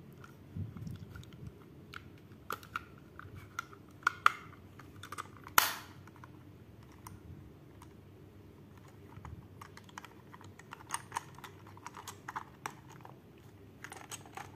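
Small plastic clicks and rattles as the battery cover is fitted back onto a toy train's plastic coal tender, with one louder click about five and a half seconds in.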